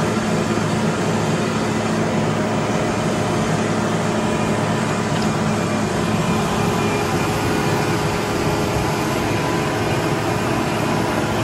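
Diesel tractor engine running steadily under load while it pulls a land-leveling scraper moving earth.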